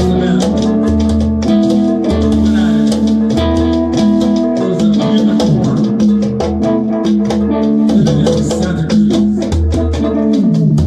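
Music: a plucked-string melody, likely guitar, over a pulsing bass and drum and percussion hits at a steady beat.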